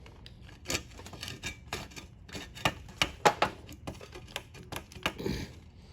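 Channel-lock pliers gripping and wrenching at a stuck control handle: a string of sharp, irregular clicks and knocks, the loudest about three seconds in.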